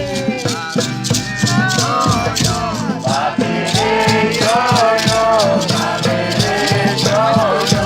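Live acoustic music: a shaker rattling a steady beat, about four shakes a second, under voices singing a sliding, wavering melody.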